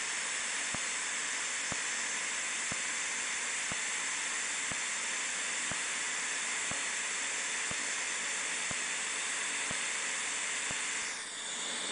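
Pulsed dye laser firing repeated pulses at a cherry angioma, a faint click about once a second, over a steady hiss that stops near the end.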